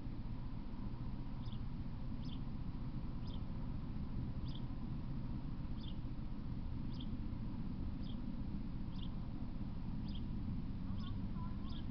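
A small animal chirping: short, high, thin chirps about once a second over a steady low rumble.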